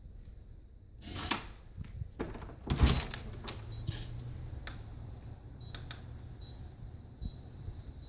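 A homemade Arduino door lock's piezo buzzer beeps short, high beeps about once a second, the lock's countdown tone. These follow a brief whirr about a second in and a clunk near three seconds.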